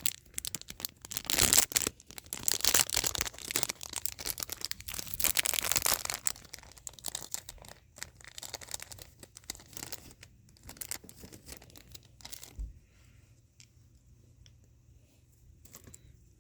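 Packaging torn open and crinkled by hand, likely around an acrylic stand: dense crackling for about the first six seconds, then lighter scattered rustles and a soft knock about twelve and a half seconds in.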